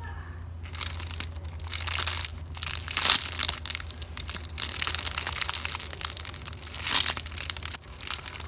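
Plastic packaging crinkling and crackling in irregular surges as squishy toys are handled and squeezed in their bags, loudest about 3 seconds in and again near 7 seconds.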